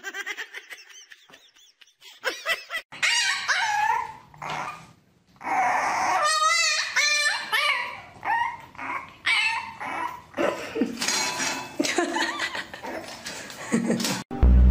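A dog whining and yipping: a string of short high calls that bend up and down in pitch, with one longer warbling whine about six seconds in.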